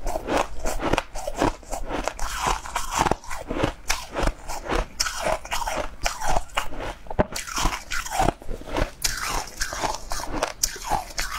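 A person chewing mouthfuls of crunchy frozen frost ice, many quick irregular crunches, close to a lapel microphone.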